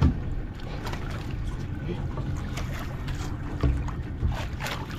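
Fishing boat's engine running with a steady low rumble, with a few sharp knocks on top, the loudest right at the start and another about three and a half seconds in.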